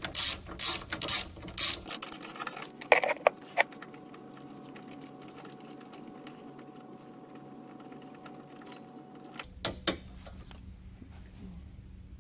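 Socket ratchet clicking, about three strokes a second, as a bolt is backed out, ending in a quick run of clicks and a few knocks. Then only a faint steady hum, broken near the end by a couple of sharp metal clinks.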